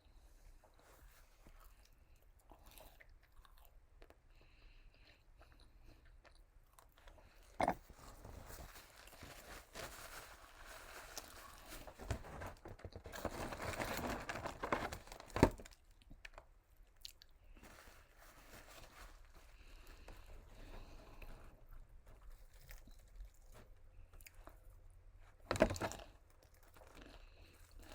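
A person chewing and crunching fried KFC food close to the microphone. The crunching is densest and loudest in the middle, with three sharp clicks or knocks spread through it.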